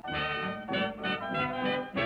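Background music: a brass-led band tune played with a regular beat.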